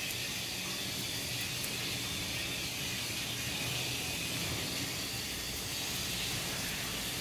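Pet grooming dryer running, giving a steady airy hiss with a faint low motor hum underneath.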